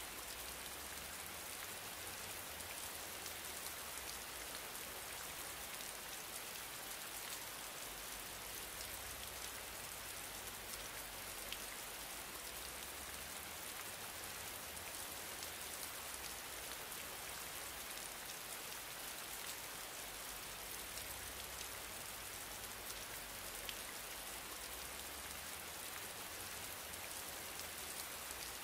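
A steady, even hiss with faint scattered ticks running through it.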